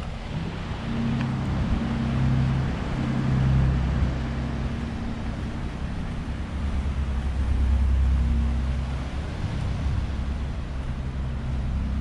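A motor engine running: a low steady hum and rumble whose pitch lines shift now and then.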